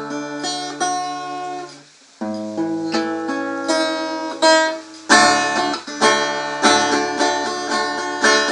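Instrumental break in a sertanejo song: acoustic guitar playing single plucked notes, breaking off briefly about two seconds in, then louder strummed chords from about five seconds in.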